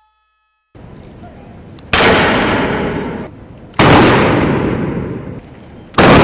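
Three black-powder shots from Japanese matchlock guns (hinawajū), about two seconds apart. Each is a loud, sharp crack followed by a long echoing decay in a large hall.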